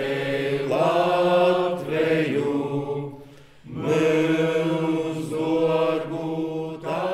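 A group of low voices singing a slow hymn together on long held notes, with a short break about three and a half seconds in before the next phrase begins.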